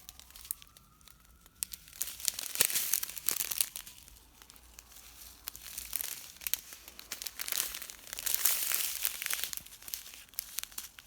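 Small plastic packets of diamond-painting drills being handled and crinkling, in two louder spells about two seconds in and again near eight seconds.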